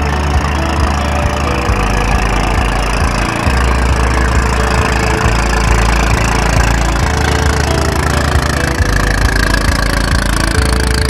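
Engine of a small motorboat running steadily as the boat passes close by.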